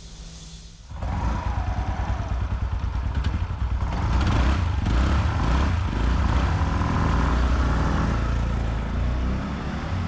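A TVS NTORQ 125 scooter's single-cylinder engine running on the move, with a heavy, uneven low rumble. It comes in suddenly about a second in.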